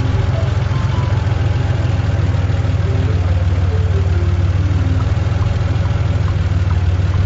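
Truck engine sound effect running steadily: a low, even, fast-pulsing diesel rumble for a concrete mixer truck at work.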